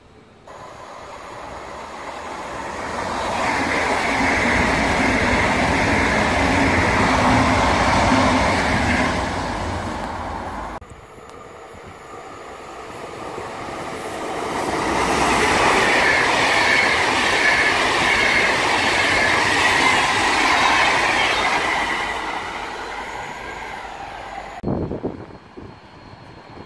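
Two electric passenger trains passing a station one after another. Each swells to a loud rush of wheels on rails with a high whine, then fades away. The second is a VR electric locomotive hauling double-deck InterCity coaches.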